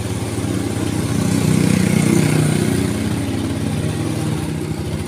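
Yamaha four-stroke underbone motorcycle engine running in neutral with its clutch freshly reassembled; it swells a little louder about a second in, then eases back to idle.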